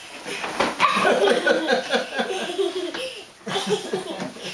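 People laughing in a long run of short, quick bursts, with a brief pause a little after three seconds before the laughing picks up again.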